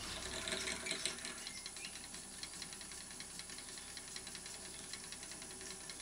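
Wood lathe running while a small drill bit in a tailstock drill chuck bores a hole into the centre of a spinning spalted beech lid, giving a quiet, fast run of light ticks.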